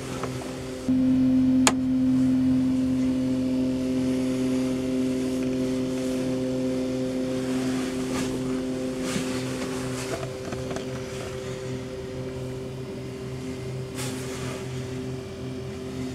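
A steady droning hum of several held tones, which steps up in level about a second in and eases after about ten seconds, with a sharp click early on and a few short rustles.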